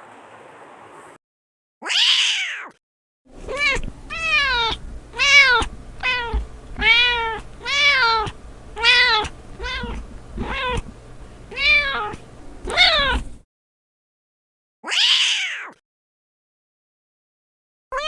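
Cat meowing: one meow, then a quick run of about fifteen short meows, each rising and falling in pitch, roughly two a second, then a single meow near the end.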